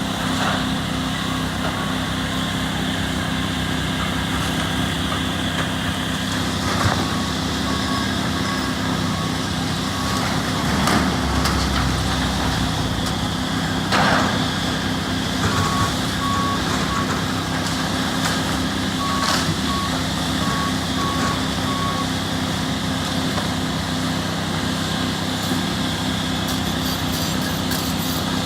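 Heavy construction machinery running steadily, with a backup alarm beeping in runs that start and stop several times, and a few sharp knocks of demolition work.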